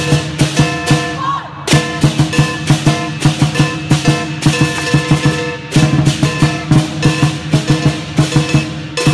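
Chinese lion dance percussion: a drum beaten in fast, dense strokes, with cymbals and gong ringing over the beat. There are heavier crashes about two seconds in and again near six seconds.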